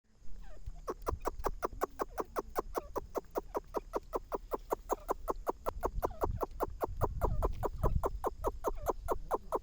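Grey francolin (teetar) calling: a rapid, even series of sharp notes, about four to five a second, starting about a second in.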